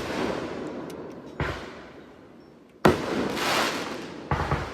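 Fireworks going off: the fading tail of one blast, then a smaller bang about a second and a half in, the loudest bang near the three-second mark with a long fading tail, and another bang near the end.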